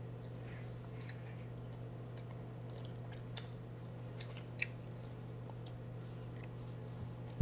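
A person chewing a mouthful of ham close to the microphone: scattered soft wet smacks and clicks, with a sharper knock right at the end, over a steady low hum.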